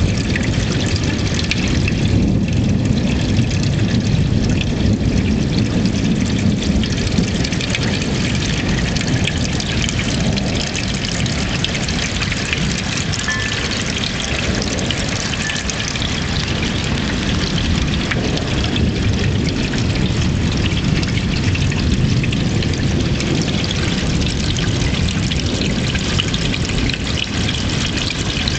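Heavy rain falling steadily, a dense pattering hiss with a low rumble underneath.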